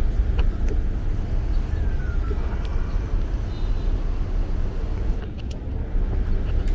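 Street traffic: a steady low rumble of passing road vehicles, with a few faint clicks.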